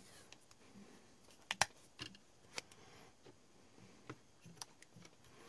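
Faint, scattered clicks and taps from small plastic parts being handled and fitted together, a few sharp ones standing out, the loudest about one and a half seconds in.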